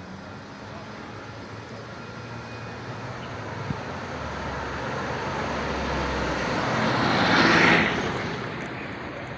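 A motor vehicle driving past, its engine and tyre noise growing steadily louder, loudest about seven and a half seconds in, then fading quickly.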